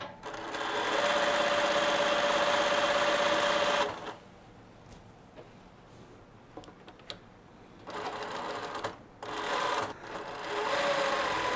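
Reliable 2300SZ direct-drive zig-zag sewing machine sewing straight stitch through denim: one steady run of about three and a half seconds, a pause with a few light clicks, then two shorter runs near the end.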